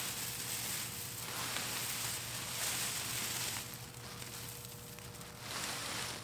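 Dry dead plant stalks and straw rustling and crackling as they are gathered and pulled from a garden bed, in a few separate spells of rustling.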